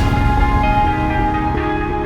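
Background music: sustained pitched instrumental tones over a low rumble, with no singing yet.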